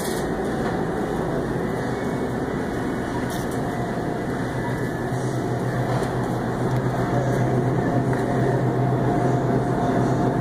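Steady hum and hiss of a supermarket's refrigerated meat display case and store air handling, with a low hum growing stronger about halfway through.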